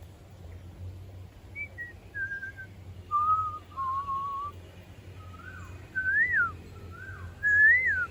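A series of clear whistled notes: a few short level notes, then two longer held lower notes, then swooping rise-and-fall whistles near the end.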